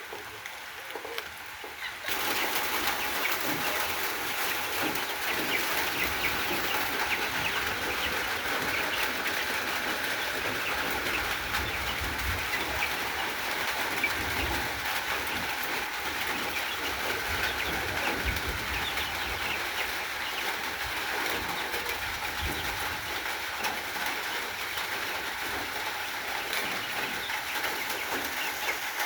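Many chickens calling at once, a dense steady chatter of clucks and chirps that starts abruptly about two seconds in.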